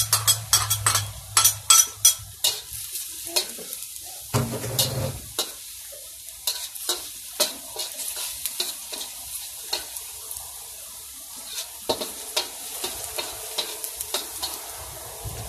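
Minced garlic sizzling in hot oil in a stainless wok, with a utensil scraping and tapping the pan as it is stirred. The strokes come thick and fast for the first couple of seconds, then more spaced out.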